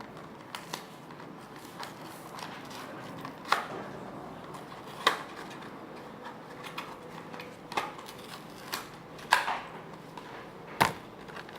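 Plastic blister packaging and card backing of a die-cast toy car being handled and pried open: irregular clicks and crinkles, with a few louder snaps.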